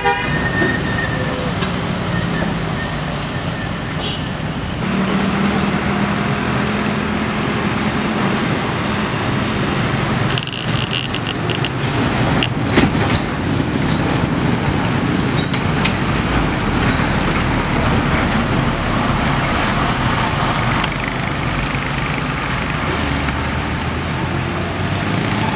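Road traffic on a bend: trucks, cars and motorcycles passing one after another, engines running and tyres on asphalt. A run of sharp clicks and rattles comes about halfway through as a dump truck passes close.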